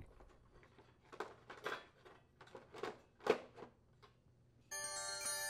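Plastic blower housing of a Briggs & Stratton riding-mower engine being handled and set in place: a few light knocks and scrapes. Steady background music tones start near the end.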